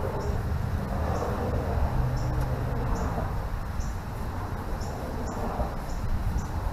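Steady low background rumble with short, high chirps about once a second, as from a small creature outdoors.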